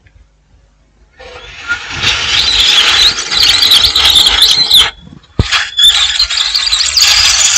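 Hot air rework station blowing a loud, whining hiss over a water-damaged phone circuit board to dry it. The airflow builds up about a second in, cuts out briefly with a sharp click about five seconds in, then comes back.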